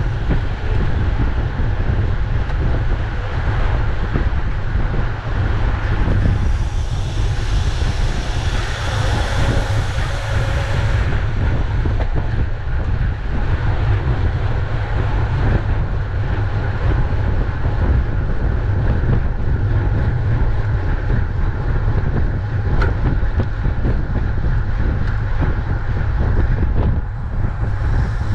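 Wind buffeting the microphone of a camera on a racing bicycle at speed, a steady low rumble. A brighter hiss rises over it for several seconds about a quarter of the way in, and there is a single sharp click near the end.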